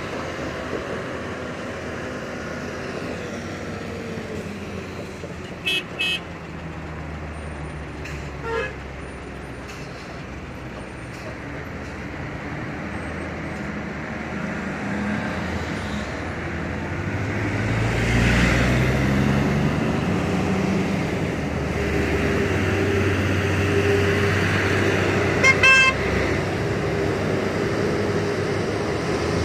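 Traffic on a mountain hairpin bend: a loaded multi-axle lorry's diesel engine running at low revs, growing louder as it comes round toward the listener, with cars passing. Short double horn toots sound about six seconds in and again near the end.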